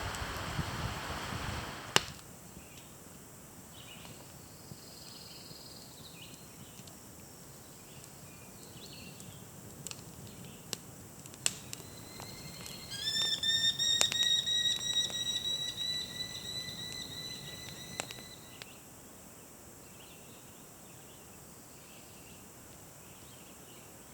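Quiet outdoor ambience with faint bird chirps and a few sharp pops. Just past the middle, a bird gives a loud, rapid series of repeated high notes for about five seconds. A louder rushing noise fills the opening and cuts off suddenly about two seconds in.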